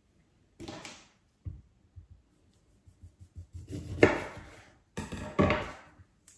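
A kitchen knife cutting a lime in half on a wooden chopping board: a few short scrapes and knocks, the loudest a sharp knock of the blade against the board about four seconds in.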